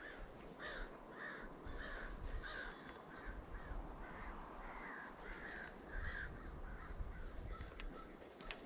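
A crow cawing repeatedly, a series of short, same-pitched caws about twice a second that die away near the end.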